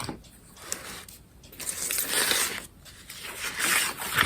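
Paint being scraped across paper in three rough, hissing strokes, each about a second long, the last two louder.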